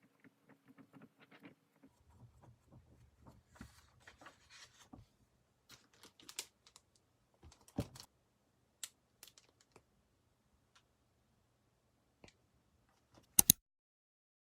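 A paper diary being handled: scattered light taps and clicks, and a brief rustle of paper. A sharp double click near the end is the loudest sound.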